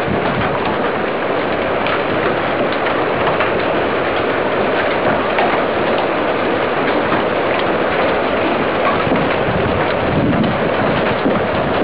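Heavy hail pelting down in a steady roar, dense with small sharp impacts.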